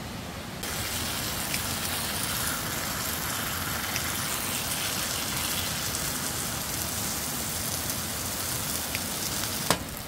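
Pork belly and aged kimchi sizzling in a frying pan, a steady hiss that starts about half a second in, with a sharp click near the end.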